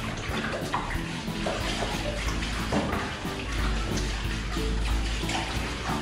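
Background music over water running and splashing on the wet tiled floor of a drained pool as it is cleaned.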